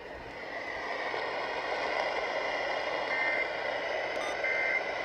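Emergency Alert System end-of-message data bursts: two short, buzzy two-tone digital bursts about a second and a half apart, over a steady radio static hiss.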